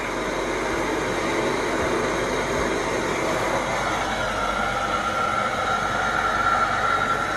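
Carpet-cleaning hot water extraction machine running under suction: a steady rushing noise, with a steady whine coming in about halfway through.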